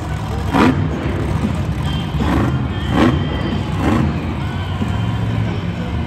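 Monster truck's supercharged V8 engine running loud, with four sharp bursts in the first four seconds.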